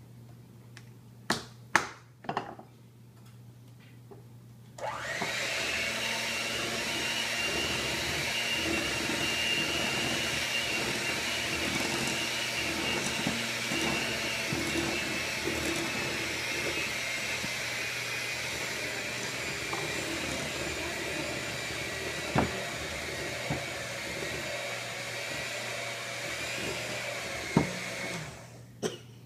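Electric hand mixer switched on about five seconds in and running steadily as its beaters whir through chocolate cupcake batter, then switched off near the end. A couple of sharp knocks come before it starts, and a few more knocks sound while it runs.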